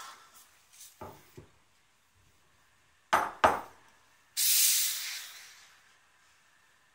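Two sharp knocks just after three seconds in, then the steam wand of a C.M.A. Astoria Compact espresso machine lets out a short, loud hiss of steam for about a second, tailing off: the wand being purged and wiped with a cloth after frothing milk. A couple of lighter knocks come about a second in.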